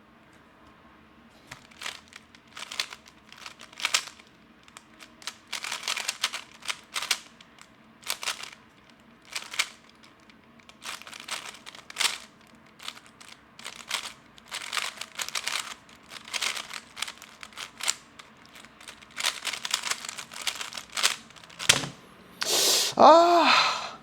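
A lubed magnetic 3x3 speedcube being turned fast, its plastic layers clicking and rattling in quick bursts with brief pauses between groups of moves. Near the end, a short loud vocal exclamation.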